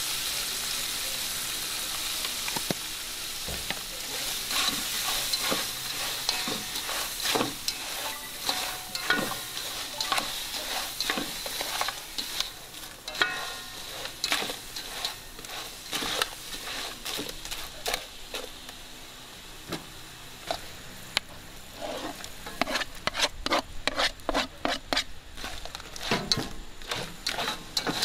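Shrimp sizzling in an aluminium pot while a metal spatula stirs them, scraping and clacking against the pot. The clacks come fast and thick near the end.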